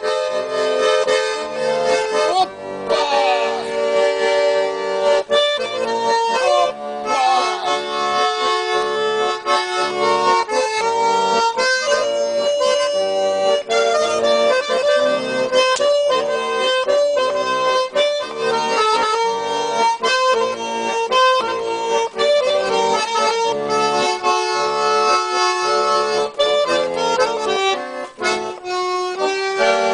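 Garmon (Russian button accordion) playing an instrumental melody over held chords in a chanson song.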